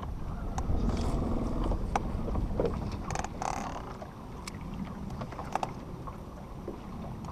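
Wind and water around a small fishing boat, with scattered knocks and clicks and a short rushing noise a little past three seconds in.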